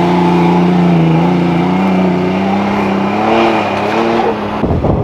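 Toyota Tacoma pickup's engine revving hard under load as it climbs a loose sand slope, its pitch rising slowly, then wavering, before it cuts off abruptly near the end.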